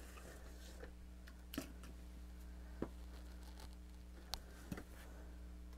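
A few faint, scattered clicks and taps from small plastic toy pieces being handled, over a steady low hum.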